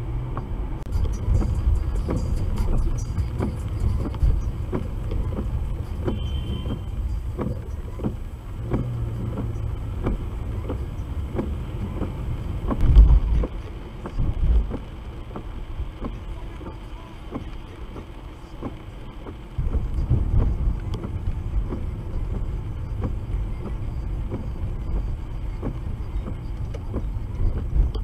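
Inside a moving car on a wet road: steady low engine and road rumble with small knocks, and one loud thump about halfway through.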